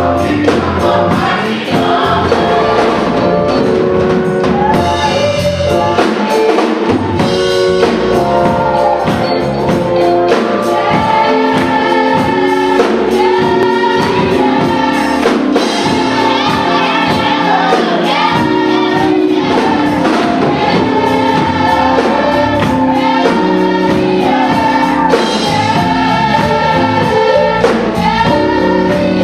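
Gospel choir singing with band accompaniment, drums keeping a steady beat.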